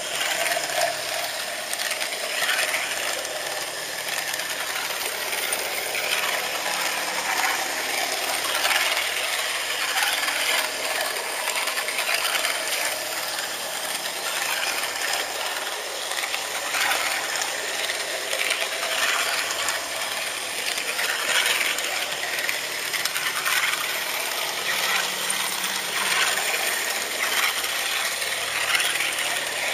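HO-scale model train running along its track, heard close up from a camera riding on the locomotive: a steady mechanical rattle of wheels and gear drive with many small clicks.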